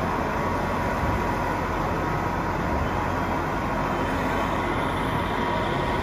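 A radio-controlled 1:8-scale hydraulic excavator working its arm, with a steady whine from its hydraulic pump. Behind it is the constant, even noise of a busy exhibition hall.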